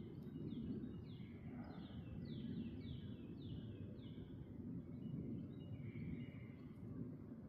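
A bird singing a run of short, quick falling notes, a few per second, that stops about four and a half seconds in, over a steady low rumble.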